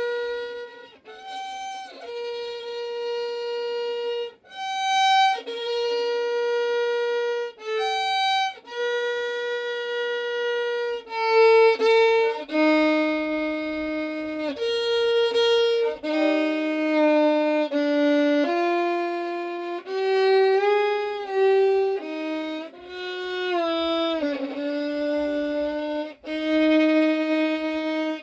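Solo violin playing a slow improvised melody of long bowed notes with short breaks between them, sliding between some notes and wavering in pitch in the later part.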